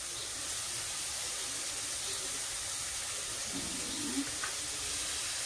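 Eggs and mushrooms frying in a hot pan, a steady sizzle.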